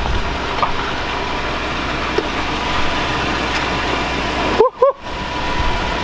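Toyota Tundra pickup's engine running steadily at low speed as the truck creeps up a steep driveway apron on large new tyres. Two brief high chirps sound near the end.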